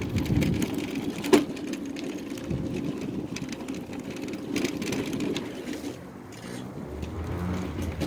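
Mobility scooter driving along a paved path: a steady low motor hum and tyre rumble, with one sharp knock a little over a second in.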